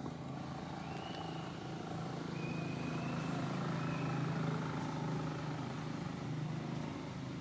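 Low engine hum of a motor vehicle, growing louder to its peak a little past halfway and then easing off.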